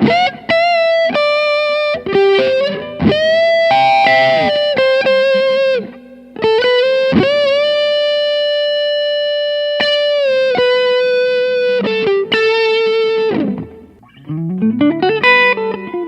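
Gibson Custom Shop '59 Les Paul Standard reissue electric guitar playing a lead line: long sustained notes with string bends and short breaks, then a quicker run of notes near the end.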